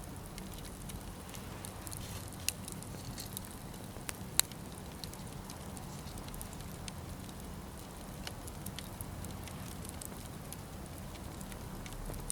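Wood fire crackling, with scattered small pops and one sharper pop about four seconds in, over a steady low hum.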